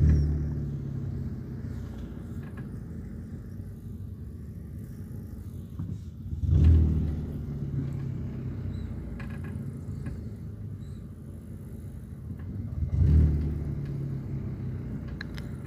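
Low road-traffic rumble of cars that swells three times, about six seconds apart.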